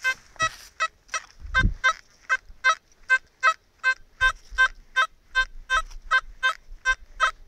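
Metal detector beeping over a buried metal target: about twenty short, identical pitched beeps at an even pace of roughly three a second.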